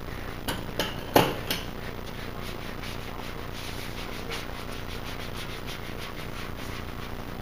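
Hand squeegee rubbing over vinyl flame graphics on a car hood in short repeated strokes, over a steady background hiss. Four sharp knocks come in the first second and a half, the third the loudest.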